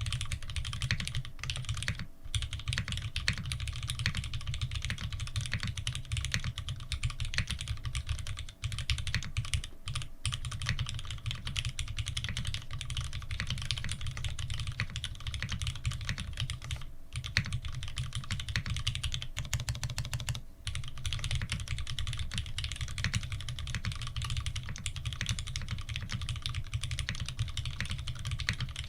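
Fast, continuous typing on an F2-84 mechanical keyboard fitted with lubed Cherry Retooled Black linear switches and GMK keycaps. There are short breaks about 2, 8 and 20 seconds in.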